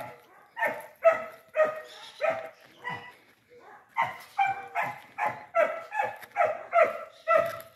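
A dog barking over and over, about two or three short barks a second, pausing briefly about three seconds in before starting again.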